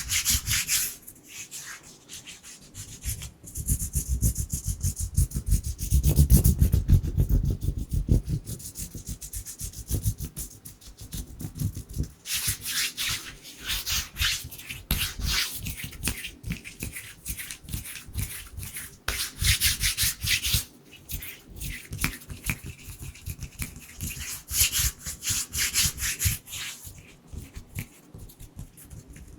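Dry hands rubbing together close to a microphone in bursts of hissy friction, alternating with stretches of quick, low fluttering hand movements.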